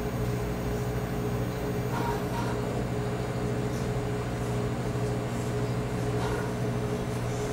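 Steady low hum with a few fixed tones, with faint brief sounds about two seconds and six seconds in.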